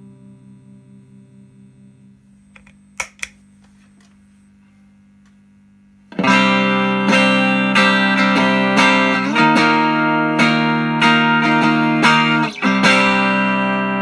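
An electric-guitar chord fades out quietly, then two sharp clicks come about three seconds in as the Hermida Audio Zendrive overdrive pedal is switched on. From about six seconds in the guitar plays loud strummed chords through the pedal with overdrive, changing chord twice and left ringing near the end.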